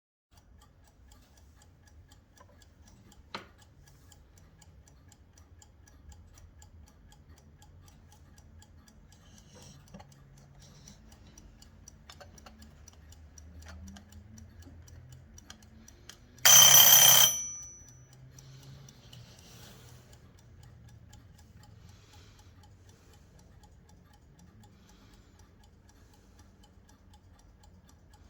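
Vintage 1983 French wind-up alarm clock ticking faintly, with a single click a few seconds in. Just past halfway its alarm rings loudly for about a second, then stops.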